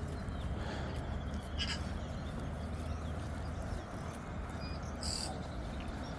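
Two short, high bird calls, one about a second and a half in and another about five seconds in, over a steady low outdoor rumble.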